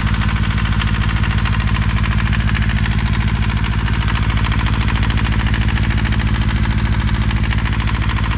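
Boat's inboard engine idling, heard loud and close through the open engine compartment: a steady, even, rapid pulsing.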